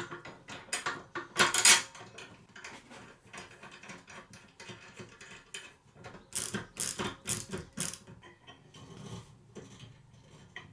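Steel linkage parts, a bolt and washers clicking and clinking as a lever arm is fitted to the pivot bracket of a steel mower deck. The loudest clink comes about a second and a half in, and a run of sharp clicks follows from about six to eight seconds.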